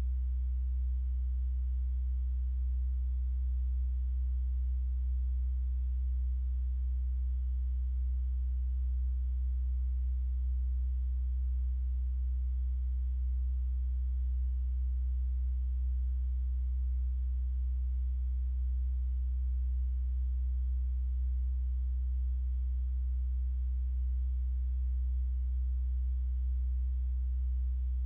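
A steady, unchanging low hum, with nothing else audible.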